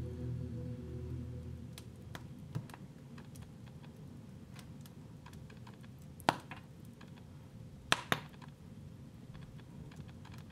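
Wood log fire crackling, with scattered small clicks and sharp pops: one loud pop about six seconds in and two more close together about eight seconds in. The last held notes of background music fade out in the first second or so.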